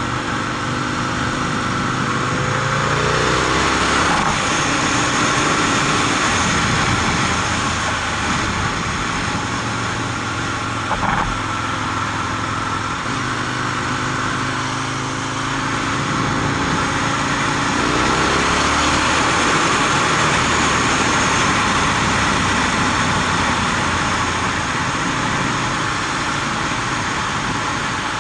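Aprilia RSV Mille R's V-twin engine running on the move, with wind rush throughout. The engine note climbs in pitch twice as the bike accelerates, once a few seconds in and again about halfway through. There is one short knock about 11 seconds in.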